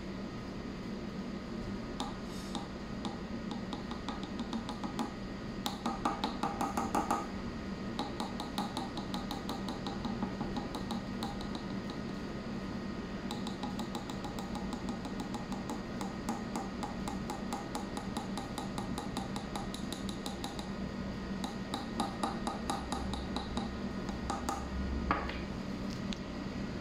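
A steel bolt tapped quickly and lightly against an automotive knock sensor: runs of small metal-on-metal clicks lasting a few seconds each, over a steady hum. The taps make the sensor produce a voltage that is read on a multimeter, which tests whether the sensor works.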